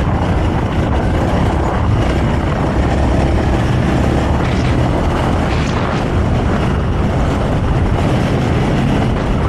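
Honda CRF300L's single-cylinder engine running steadily while the bike is ridden off-road, mixed with a constant rush of riding noise.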